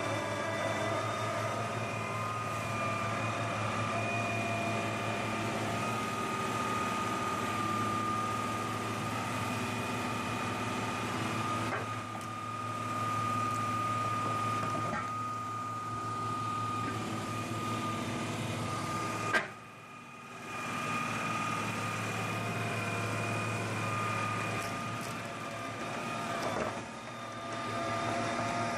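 Stump-grinding machinery running steadily: an engine hum with a high, steady whine on top. The sound shifts abruptly a few times, with a sharp click and a brief dip about two-thirds of the way through.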